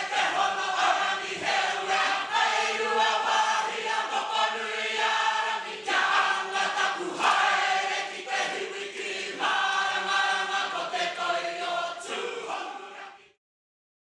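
A choir of voices singing together in a sustained, chant-like song that stops abruptly near the end.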